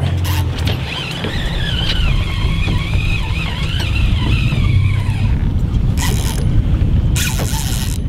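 Boat motor running with wind rushing on the microphone, while a fish is being fought on a spinning rod. A wavering high squeal is heard for a few seconds, and there are two short hissing bursts near the end.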